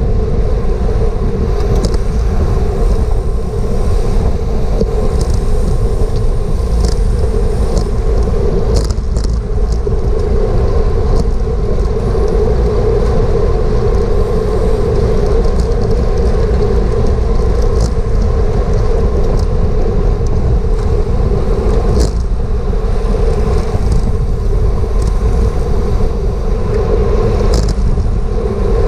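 Wind rushing over a GoPro action camera's microphone on a racing bicycle at speed, loud and continuous, with a steady hum underneath and a few faint ticks.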